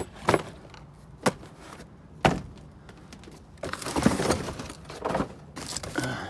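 Knocks and clatter of boxed metal hardware and cardboard boxes being handled: three separate sharp knocks in the first few seconds, then a longer jumble of clattering and scraping.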